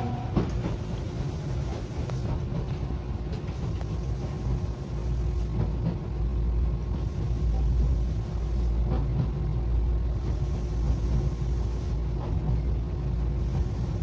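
Tokyu Setagaya Line 300-series tram running, heard from inside the car: a steady low rumble of wheels on rail with a constant motor hum over it and a few faint clicks.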